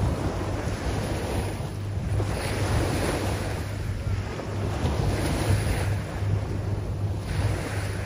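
Small sea waves breaking and washing up the beach, a hiss that swells and fades a few times. A steady low rumble of wind buffets the microphone underneath.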